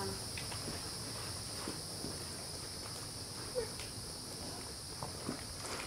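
Steady high-pitched insect chorus, with a few soft, scattered knocks of a horse's hooves stepping on paving.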